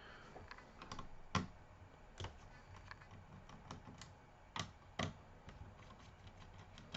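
Light, irregular clicks and taps of small laptop screws and a screwdriver being handled against the plastic laptop case, a few of them sharper than the rest.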